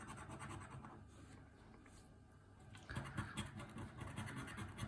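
Faint scratching of a scratch card's coating being scraped off, starting about three seconds in after a nearly quiet stretch.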